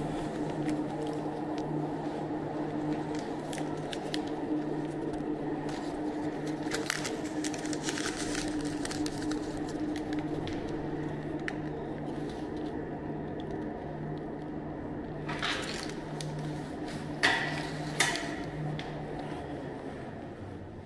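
A steady low mechanical hum, with paper tickets being rustled and handled, scattered clicks, and two sharp knocks about a second apart near the end.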